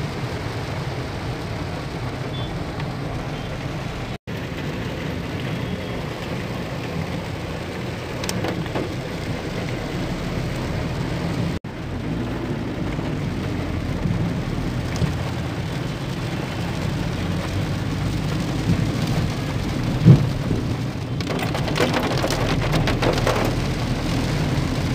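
Heavy rain drumming on a moving vehicle's roof and windscreen, heard from inside the vehicle over its low road and engine noise. The rain grows denser and more crackling near the end.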